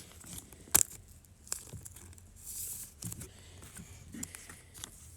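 Trading cards and their packaging being handled: a sharp click just under a second in, a brief rustle of cards or wrapper sliding in the middle, and light taps of cards.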